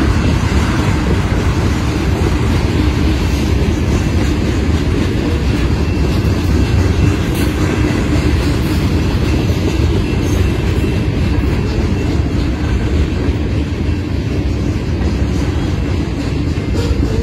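Freight cars of a mixed freight train rolling past: a loud, steady rumble of steel wheels on the rails, with a few faint clicks.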